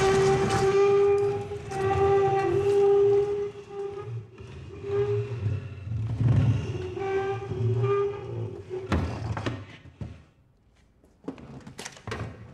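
A heavy high-backed wooden chair dragged across a stone floor, its legs scraping with a loud, steady screech in two long drags. A few knocks follow near the end as the chair is set down.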